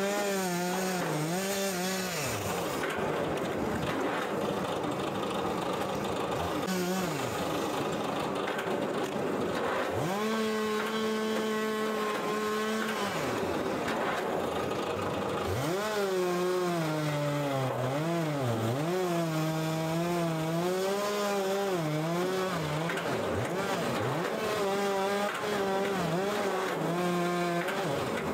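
Electric log splitter's motor running with a pitched hum, its note repeatedly sagging and recovering as it takes the load of each log being split; the hum fades between stretches of work.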